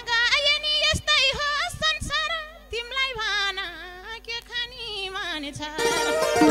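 A woman singing a solo line of a Nepali dohori folk song into a microphone, her voice wavering and ornamented, over only a few drum strokes. The full band comes back in near the end.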